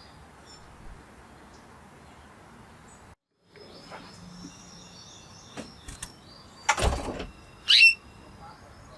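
Spanish Timbrado canary giving scattered faint chirps over steady background hiss, between song phrases. About seven seconds in comes a short rustling burst, and just after it one loud, sharp chirp.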